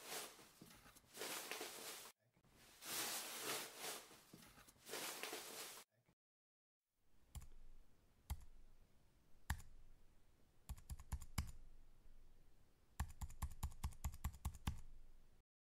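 Plastic being crumpled in the hand, a dense crackling in three long clumps for about six seconds. After a short pause, slow typing on a computer keyboard: a few single keystrokes about a second apart, then two quicker runs of keys near the end.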